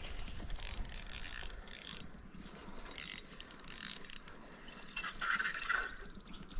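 Insects trilling in a steady, high, unbroken tone, with a few short bursts of rattling over it in the first four seconds.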